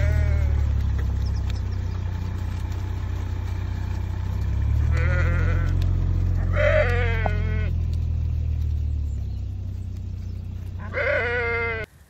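Sheep bleating as the flock runs out onto grass: four calls, the longest and loudest in the middle, over a steady low hum.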